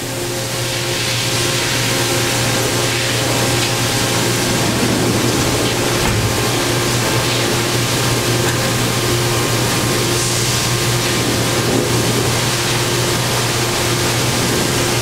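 Daewoo Puma 2000SY CNC turning center running with its door closed: a steady hum under a loud, even rushing hiss that comes up within the first second, with a fainter tone pulsing on and off at a steady pace.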